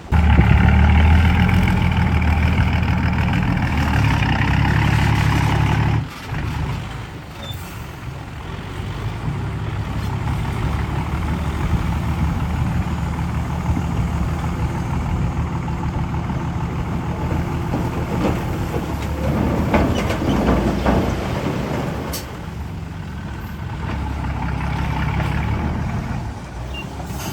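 Heavy diesel construction machinery running under load. The loudest stretch, with a strong low engine hum, drops away suddenly about six seconds in, and a steadier, quieter engine sound follows.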